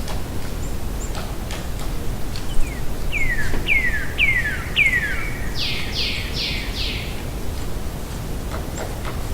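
Distant woodpecker calling over steady outdoor background noise: about three seconds in, a run of four short calls sliding down in pitch, then four harsher notes. Faint scattered taps are heard between the calls.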